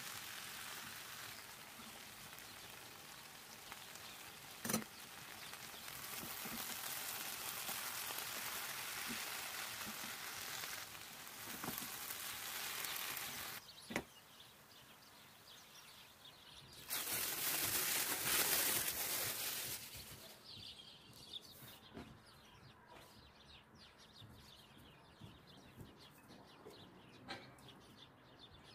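Ground beef and grated potato filling sizzling in a frying pan, with a few sharp knocks of a wooden spoon against the pan. Later a louder hiss lasts about three seconds, then the sound drops to quiet with small ticks.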